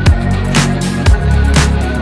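Electronic background music with heavy bass and a steady beat, about two beats a second.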